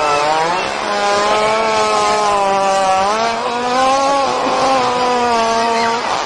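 A long, drawn-out animal fart: one continuous buzzing tone with a slight wavering in pitch, breaking off briefly near the end.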